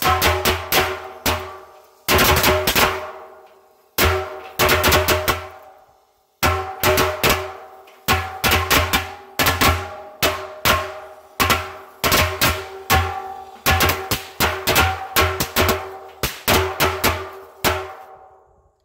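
A 100-count strip of Black Cat firecrackers going off inside a 55-gallon steel drum: rapid, uneven bangs in clusters, each setting the drum ringing with a metallic tone. There are short pauses about 2, 4 and 6 seconds in, and the bangs stop near the end as the ringing fades.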